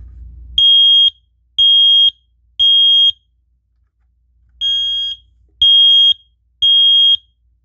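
Smoke alarm sounding its temporal-three alarm signal: two rounds of three loud, high-pitched half-second beeps, with a pause between the rounds.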